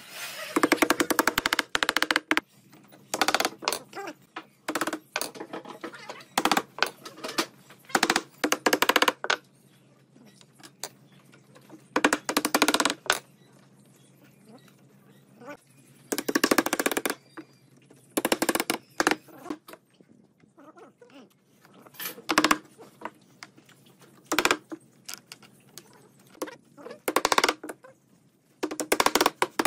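Wooden mallet tapping wooden diamond-shaped pieces down into a glued cube-pattern parquetry panel: wood-on-wood knocks in about ten bursts of quick strikes, with short pauses between.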